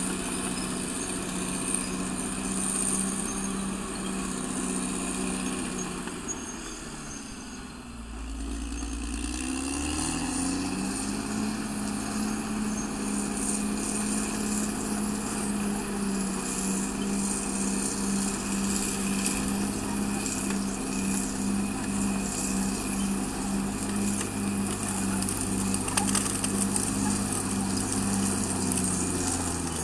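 Caterpillar D6R XL bulldozer's diesel engine running under throttle; its pitch drops about six seconds in, then rises again around ten seconds in and holds steady.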